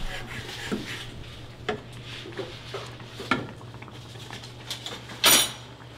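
Spatula stirring sauce in a metal saucepan on a gas stove, with a few light knocks of utensil on pan and a louder clatter about five seconds in. A steady low hum runs underneath.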